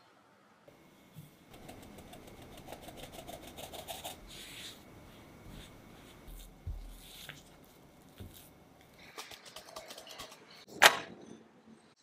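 Flour and milk powder sifting through a metal mesh sieve into a glass bowl, with a rapid fine ticking from the sieve. Then a silicone spatula scrapes and folds the stiff dough against the glass bowl, and a single sharp knock comes near the end.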